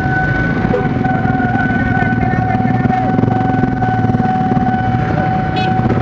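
Railway level-crossing warning alarm sounding one steady electronic tone, over the low rumble of idling motorcycle engines.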